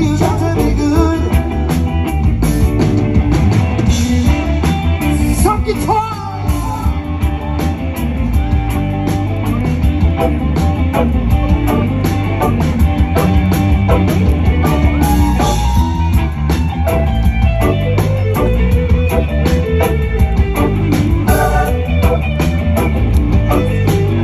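Live rock and roll band playing with electric guitars and keyboard over a steady beat, with singing.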